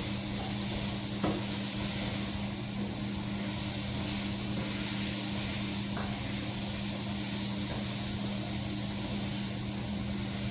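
Onions frying in oil in a pan, a steady sizzle being cooked toward golden brown, with a steady low hum underneath and a couple of faint light clicks.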